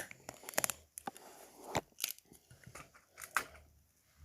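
Lego bricks clicking and clattering as they are handled and pressed together: a string of short, irregular sharp clicks.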